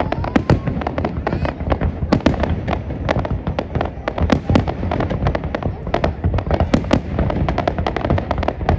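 Fireworks display: a dense, continuous barrage of shell bursts and crackling bangs, several a second, over a steady low rumble.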